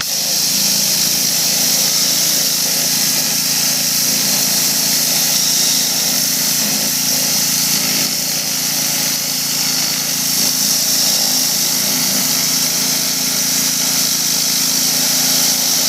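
Craftsman 2500 PSI pressure washer's engine running steadily while the turbo-nozzle wand sprays a high-pressure jet of plain water, a loud steady hiss over the engine's hum. The spray comes on right at the start.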